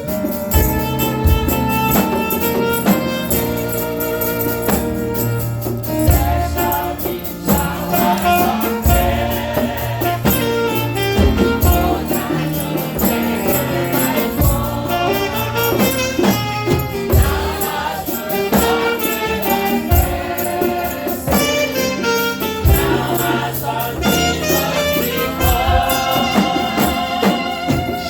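Gospel music: a church choir singing over instrumental accompaniment with a tambourine shaking.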